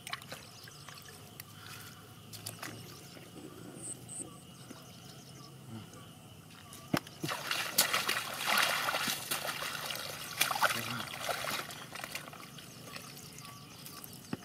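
Shallow muddy water sloshing and splashing as hands and a bamboo basket work through a puddle, groping for catfish. Quiet trickling and a few small splashes for the first half, then about five seconds of loud, busy splashing from about halfway through, easing off near the end.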